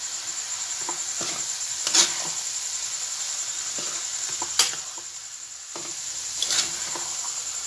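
Cooked dal and sugar for puran sizzling in a pan while being stirred with a metal spatula. The spatula scrapes and knocks against the pan sharply three times, about two seconds in, in the middle and near the end.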